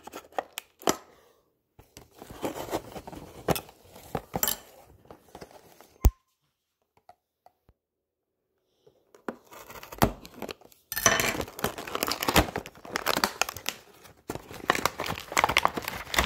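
Packaging of a toy fingerboard box being torn open and crinkled by hand: two spells of rustling and tearing, with a sharp click about six seconds in and a few seconds of near quiet after it.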